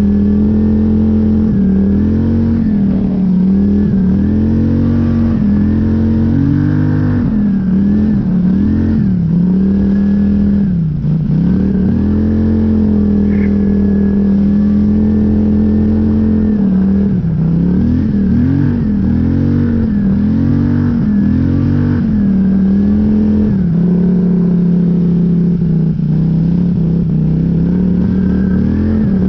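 Polaris Scrambler 850 ATV's 850 cc twin-cylinder engine running under constantly changing throttle while ploughing through deep snow. The pitch rises and falls over and over, dropping sharply about eleven seconds in before climbing again.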